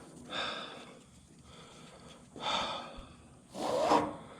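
A man breathing hard: three loud, noisy breaths about a second apart, the last one the loudest.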